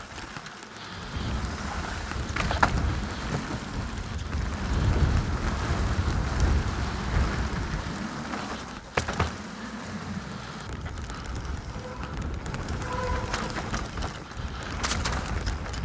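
Canyon Strive mountain bike riding down a rough trail: a steady low rumble of tyres and wind on the action-camera microphone, broken by a few sharp knocks and clatters from the bike over the rocks, the sharpest about nine seconds in.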